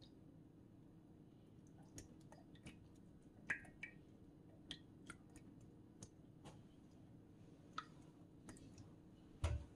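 Faint, scattered clicks and small snaps of sataw (stink beans) being split apart by hand over a steel bowl of water, with a louder thump near the end.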